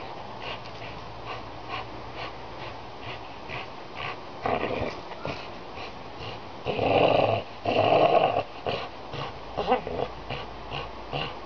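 Pit bull growling as she hangs from a fishing buoy clamped in her jaws, with two louder, longer growls a little past the middle.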